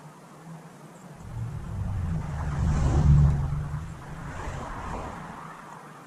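A motor vehicle passing by: a low engine and road rumble that swells up, peaks about halfway through and fades away.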